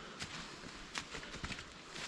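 Footsteps of hikers walking on a trail, sharp scuffing steps roughly every half second over a low hiss.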